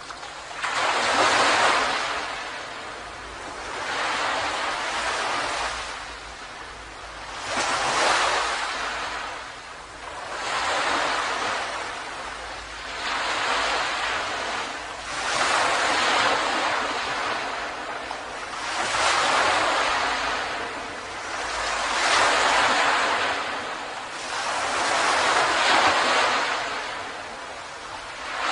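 Ocean waves breaking and washing up on a beach, one surge after another every few seconds.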